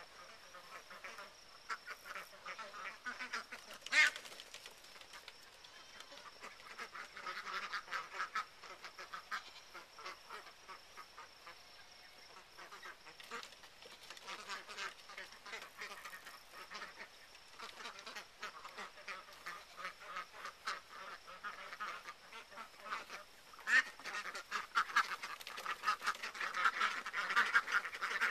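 A flock of Swedish Blue and Chocolate Indian Runner ducks quacking in quick short calls, busiest around eight seconds in and again over the last few seconds. A single sharp click about four seconds in.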